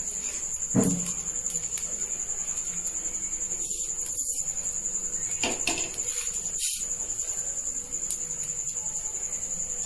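A steady, high-pitched trill runs throughout, with a soft knock about a second in.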